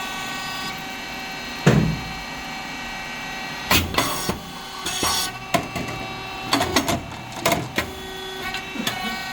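SYP8080 rice cake machine running with a steady hum from its motor, hydraulic pump and fan. Over the hum come a loud bang about two seconds in and then irregular clacks and knocks from the working mechanism.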